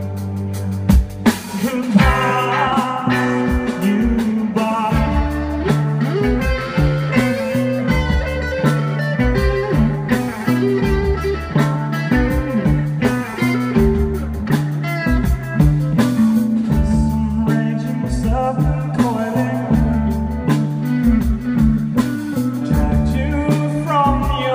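A rock band playing live: electric guitars with bass and drums in a bluesy, psychedelic rock style.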